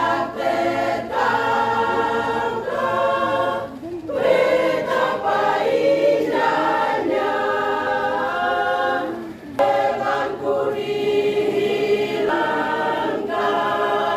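Church choir of women's and men's voices singing together in long held phrases, with brief pauses between phrases about four and nine and a half seconds in.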